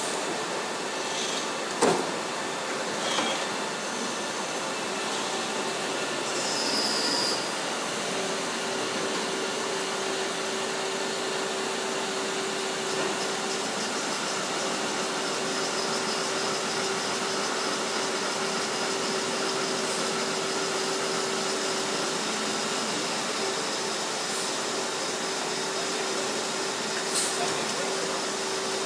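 Steady din of industrial machines running in a factory hall, with a sharp knock about two seconds in and a smaller one a second later. A brief hiss comes around seven seconds in, and a steady hum tone joins about a second after that.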